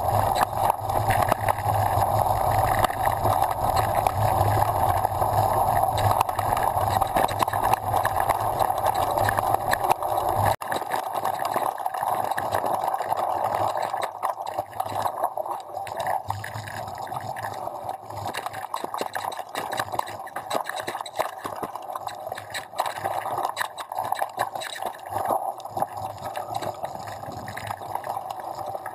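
Downhill mountain bike descending a rough dirt trail: a constant rush of wind and tyres with a rapid clatter of knocks and rattles from the bike over the ground. A deep wind rumble on the microphone cuts off suddenly about ten seconds in, and the rush is a little quieter after that.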